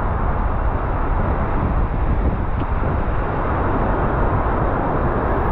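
Steady rushing noise of wind on the microphone and heavy surf, heaviest in the low end, with no distinct events.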